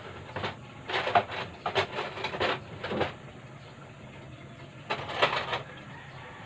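Kitchen utensils clattering and a plastic drawer rattling as someone rummages through a utensil tray, in several short spells of clinks over the first few seconds and again near the end.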